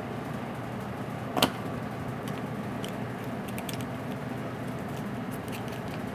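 Oyster knife working into an oyster shell: one sharp click about a second and a half in, then scattered faint clicks and scrapes of the blade on the shell, over a steady hum of kitchen ventilation.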